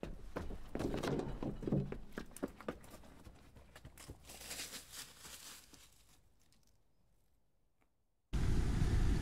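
Footsteps on a dirt forest trail with rustling, loudest at first and fading out after about six seconds. A steady, loud rushing noise cuts in abruptly near the end.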